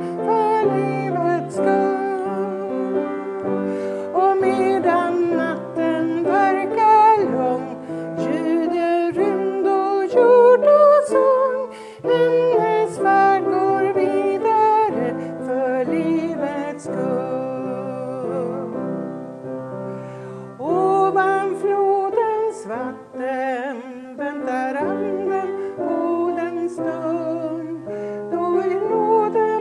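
A woman singing with vibrato, accompanying herself on an upright piano.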